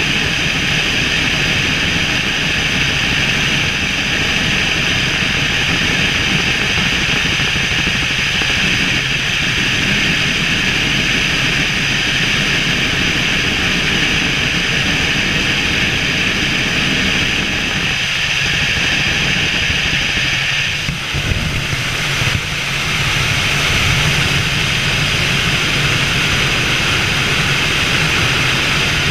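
Helicopter in flight: the engine's steady whine over the low drone of the rotor, holding loud and even, with a short dip in level about two-thirds of the way through.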